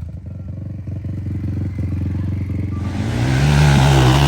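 Dirt bike engine running low with a rapid putter, then revving up about three seconds in and holding at higher revs.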